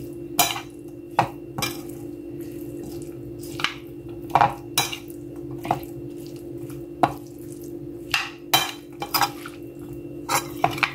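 Metal spoon stirring salad in a bowl, clinking and scraping against the bowl in irregular strokes about every half second while tossing the chopped corn, vegetables and spices together.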